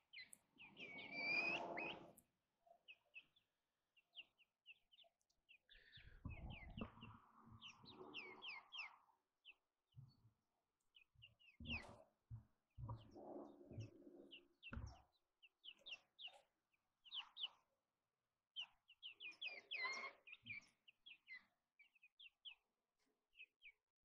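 Faint, quick chirps repeating throughout from young chickens pecking popcorn out of a plastic bag, with rustling and a few knocks between about 6 and 15 seconds in.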